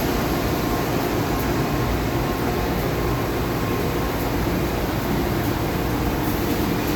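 Steady hum and hiss of a Nexturn SA-32E CNC Swiss lathe and its add-on units (high-pressure coolant system, mist collector, bar feed) running under power, with a few faint steady tones.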